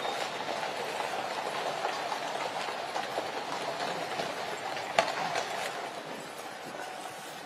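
Many horses' hooves clattering together with iron-rimmed carriage wheels rumbling on the road as a mounted procession and horse-drawn state coach pass, making a dense, continuous rattle. A single sharp click stands out about five seconds in, and the clatter eases off near the end.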